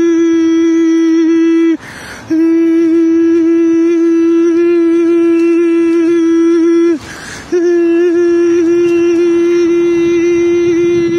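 A man's voice holding one long, steady high note through a wide grin, breaking off twice briefly.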